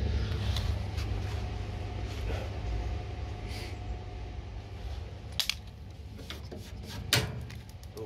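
Scattered clicks and knocks from handling around an open gas boiler over a steady low hum, the sharpest knock about seven seconds in.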